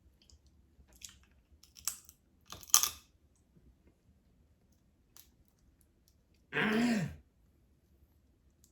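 A person eating seafood boil close to the microphone: a few sharp, crisp crunching clicks in the first three seconds. About six and a half seconds in comes a short low hum that falls in pitch.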